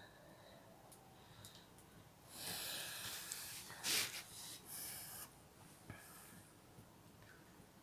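A breathy rushing hiss for about three seconds, loudest around the middle, with a single click just after it.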